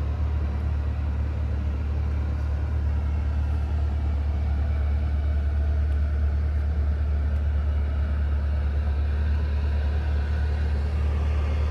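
A Corvette C8's 6.2-litre LT2 V8 idling, heard from inside the cabin as a steady low rumble.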